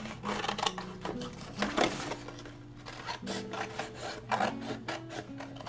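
Scissors cutting through a sheet of white paper: a run of short snips with paper rustling, over background music.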